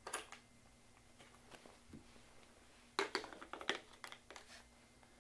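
Faint clicks and rattles of a plastic GoPro waterproof housing being handled and slid onto a mounting clip of a 360H6 camera holder, with a quick cluster of clicks about three seconds in.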